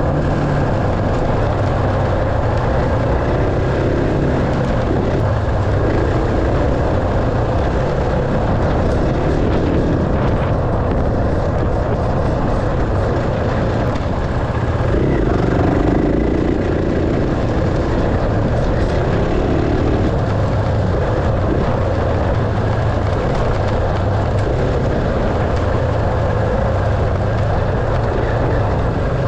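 Enduro dirt bike engine running steadily while being ridden, loud and continuous.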